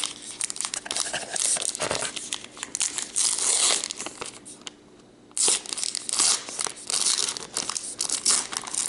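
Plastic wrapping on a trading-card box topper being crinkled and torn open by hand, with a brief pause about five seconds in.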